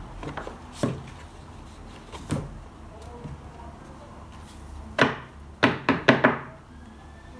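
A stack of paper sheets knocked on its edge against a wooden tabletop to square them: a couple of lighter knocks near the start, then a quick run of about five sharp knocks in the second half, with a little paper rustling.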